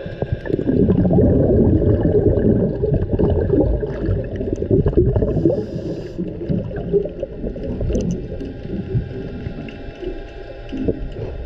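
Muffled underwater water noise heard from a camera held below the surface: a dense, low sloshing and gurgling with scattered small clicks. It is loudest in the first half and eases off near the end.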